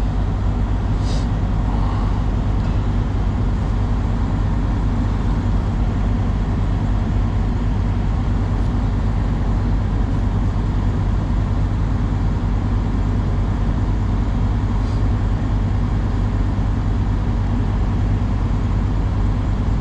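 Engine idling with a steady, unchanging low drone, with a couple of faint clicks about a second in.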